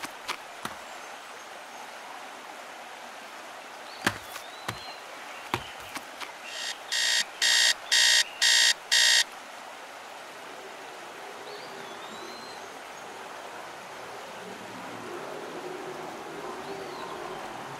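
Electronic alarm beeping, a quick run of about six beeps at roughly two a second near the middle, the loudest sound here. Around it are a steady outdoor hiss, a few sharp clicks early on, and faint high chirps.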